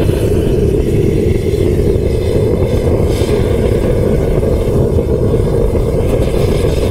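Gas-fired melting furnace burner running steadily with its air intake opened up, a loud, even jet roar of a lean, hot flame heating the crucible.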